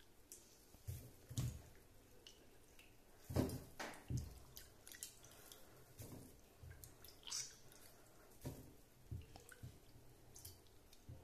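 Soaked soya chunks squeezed out by hand one at a time, the water dripping and trickling back into a steel bowl of water in faint, irregular drips and squishes, the loudest a little over three seconds in.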